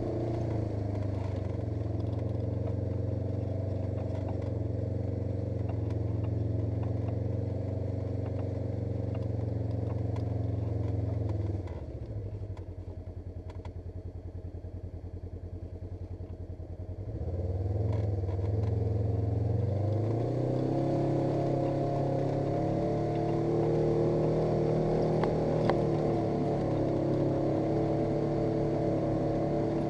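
Polaris RZR 900 S side-by-side's twin-cylinder engine running under way. About twelve seconds in it drops to a low, quieter idling beat for about five seconds, then picks up revs again and runs on steadily.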